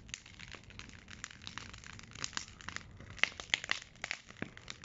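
Big wood bonfire crackling, with irregular sharp pops and snaps over a faint hiss of burning.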